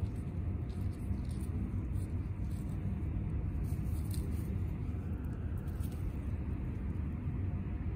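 Steady low outdoor background rumble with a few faint scattered clicks; no meowing or other call from the kittens.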